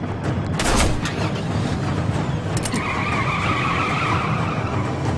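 A single sharp pistol shot about half a second in, then car tyres squealing steadily for a couple of seconds as the car speeds away, over a low engine rumble.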